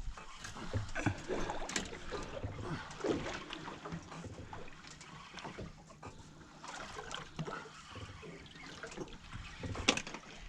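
Water slapping and splashing against a small boat's hull, with scattered light knocks and rattles.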